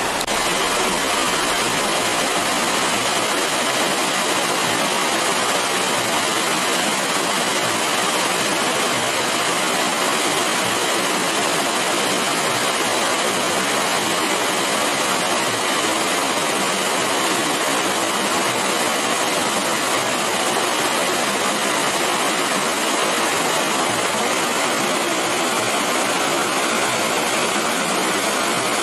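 Water pouring over a low concrete weir into churning white water below, a steady rushing noise.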